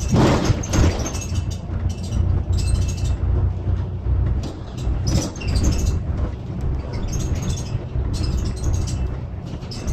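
Cabin noise on the upper deck of a moving double-decker bus: a steady low engine and road rumble, with louder bursts of clatter just after the start and again about five seconds in.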